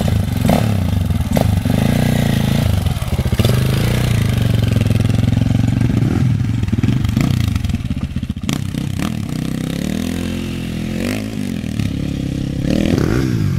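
Dirt bike engine revving as the bike takes off and rides away, the revs rising and falling over and over, with quick up-and-down swings in pitch near the end.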